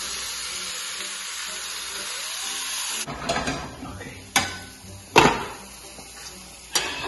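Squash and spinach sizzling in a frying pan with an even hiss. The hiss drops away about three seconds in, and three sharp knocks follow.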